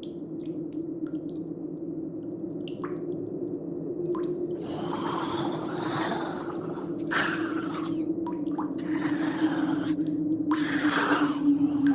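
Water dripping, then gurgling and splashing in irregular bursts that grow louder from about halfway through, over a steady low hum.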